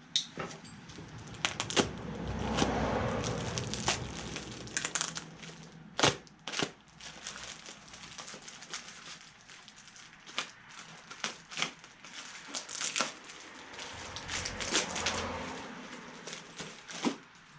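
Handling noise from plastic parts being worked by hand: irregular sharp clicks and knocks, with stretches of crinkling rustle.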